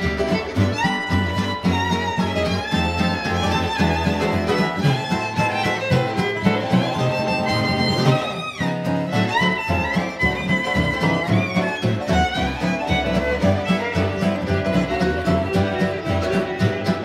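Fiddle taking an instrumental solo in a swing jug-band tune, bowing a melodic line over the band's guitar and low bass accompaniment.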